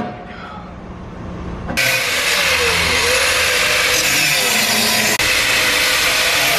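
Electric angle grinder with a thin cut-off wheel starting up about two seconds in and cutting into a steel bracket, running with a steady, loud grinding.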